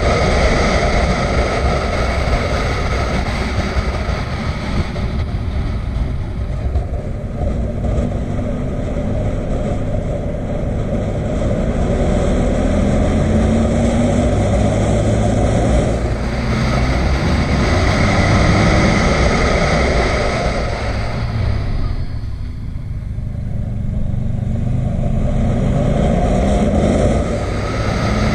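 Motorcycle engine running at road speed with steady wind rush over the bike-mounted microphone; the engine note rises a few times as it accelerates and eases off about three-quarters in.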